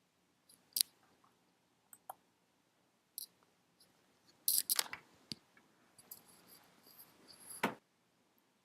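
Scattered small clicks and taps from working the computer while an application loads, with a cluster about halfway through and a sharper click near the end.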